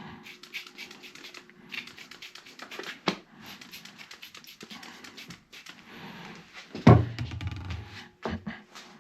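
Spray bottle of soapy water squeezed again and again onto a motorcycle tire's bead, in quick runs of spritzes. A heavy thump about seven seconds in.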